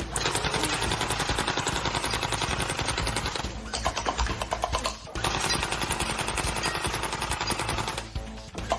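Rapid automatic gunfire, fast repeated shots in long bursts broken by short pauses about three and a half, five and eight seconds in.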